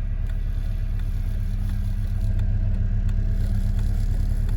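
A 2007 Honda Civic's 1.8-litre four-cylinder engine idling steadily just after being started, getting slightly louder about two seconds in, with a faint tick roughly every second and a half.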